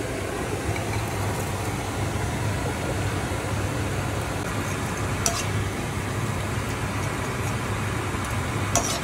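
Tofu and sauce being stirred in a wok with a spatula, with two sharp clinks of the spatula on the pan, one about five seconds in and one near the end, over a steady hum and hiss.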